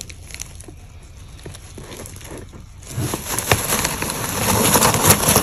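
Hand digging into the wood-shavings bedding of a cardboard bird-shipping box: a few faint rustles, then a dense crackly rustle of shavings from about three seconds in.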